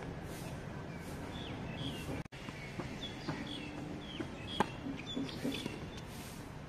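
Birds chirping again and again over the outdoor ambience, with a single sharp crack of a tennis racket striking the ball on a serve about four and a half seconds in, and a few softer knocks before it.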